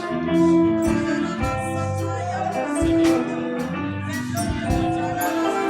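Live worship band music: held chords and a bass line, with drum and cymbal strikes about every one and a half seconds.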